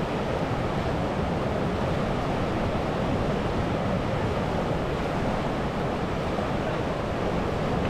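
Steady rush of a fast river running over rapids, an even roar with no breaks.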